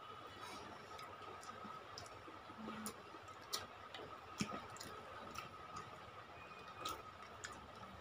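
Quiet eating sounds: scattered soft clicks and smacks of mouths chewing and fingers working curry rice, over a faint steady high-pitched hum.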